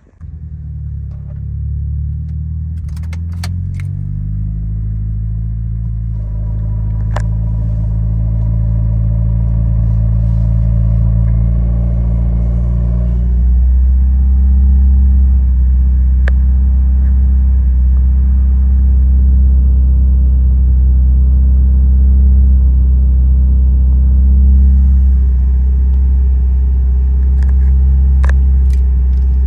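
Mitsubishi Lancer Evolution VIII's turbocharged 4G63T inline-four starting up and then idling steadily. About 13 seconds in, the idle note changes and gets louder.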